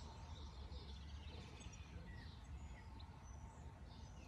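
Faint outdoor ambience: scattered short bird chirps over a low steady rumble.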